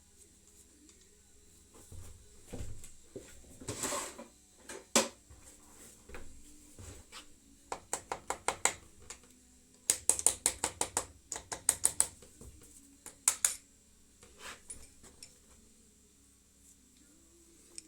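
Metal hand tools clinking and clicking, with scattered knocks and two quick runs of rapid clicks about halfway through.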